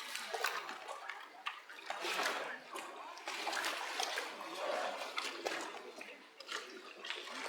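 Water splashing and sloshing in irregular bursts as bear cubs jump and play in a pool.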